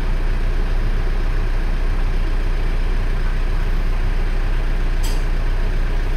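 A Mitsubishi Triton's 2.5-litre 4D56 common-rail turbodiesel idling steadily, with one brief click about five seconds in.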